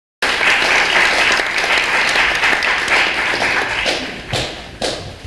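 Audience applauding, cutting in suddenly, then thinning out after about three and a half seconds to a few last scattered claps near the end.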